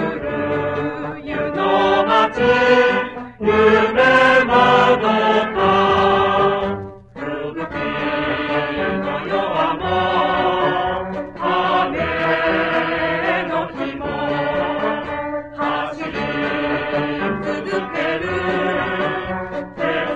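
Mixed choir singing a Japanese song in unison and harmony, accompanied by a high-school brass band, heard from a 1972 flexi-disc (sonosheet) record with little treble. The music breaks off briefly about seven seconds in, then carries on.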